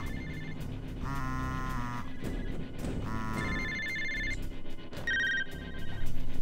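A telephone ringing with short electronic ring tones about every two seconds, three rings in all, over low background film music.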